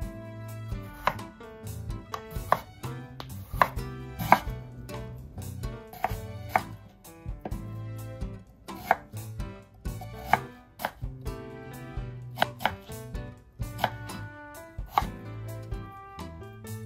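Knife cutting daikon radish on a cutting board: irregular knocks of the blade striking the board, about one or two a second, over soft background music.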